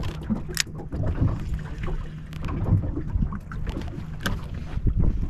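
Wind buffeting the microphone on a small boat in open chop, with water slapping the hull and a few sharp clicks and knocks, the clearest about half a second in and around four seconds.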